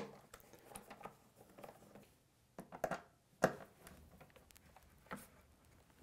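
Faint, scattered clicks and taps of a Torx screwdriver backing out the small screws holding an iMac's internal speaker and of the plastic and metal parts being handled, with a few sharper clicks around the middle.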